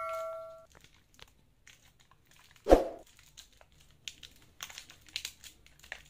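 Cardboard and paper packaging crinkling and crackling in small hands as a box is opened and a folded sheet pulled out, with a bell-like chime fading out at the start and one short, louder sound nearly three seconds in.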